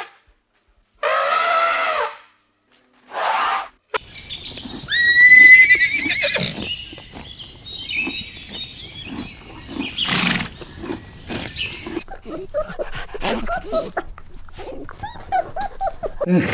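Horses neighing: two short calls, then a long, quavering high whinny about five seconds in, followed by a busy stretch of mixed animal noises.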